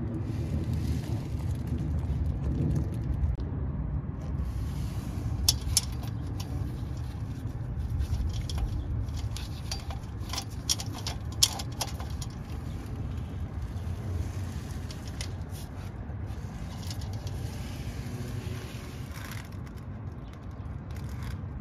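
Steel chain links clicking and scraping as the chain is handled around a car's catalytic converter, with a scatter of sharp clicks in the middle stretch. Underneath runs a steady low rumble.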